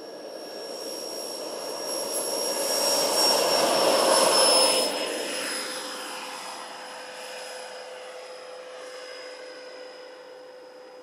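Electric ducted fans (Schübeler HDS 120 mm) of a large RC Airbus A350 model running at take-off power, a high whine over a rushing noise. It grows louder as the model rolls and lifts off, peaks about four to five seconds in, then fades as it climbs away, the whine dropping slightly in pitch.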